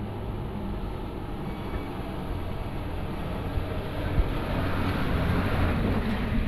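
Diesel engine of a Mitsubishi Fuso tanker truck running as it drives slowly through deep mud, growing louder as it comes up and passes close by.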